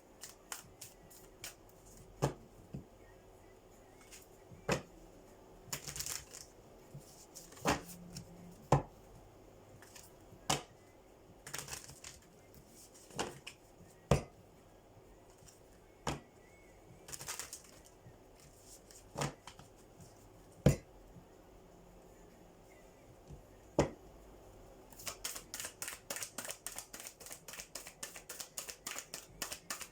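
A deck of oracle cards shuffled by hand: scattered taps and slaps of the cards for most of the time, then a fast run of card clicks, several a second, near the end.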